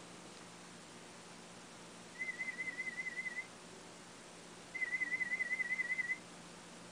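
Audiometer warble tone near 2 kHz, a single pitch wavering rapidly up and down, sounded twice for about a second and a half each, the second a little louder. These are hearing-test tones presented to find the listener's threshold at that pitch.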